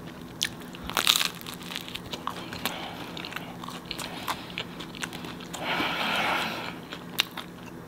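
A person chewing a bite of homemade pizza with a crispy crust: scattered crunches and mouth clicks, a louder crunch about a second in, and a longer stretch of crunching around six seconds in.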